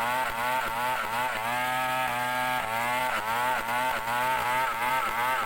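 Chainsaw engine running under load, its pitch dipping and climbing back again and again, about two or three times a second, as the saw works into the wood.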